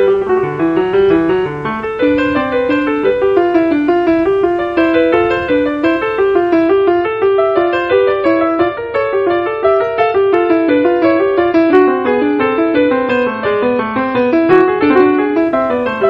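Background piano music, a steady run of quick notes.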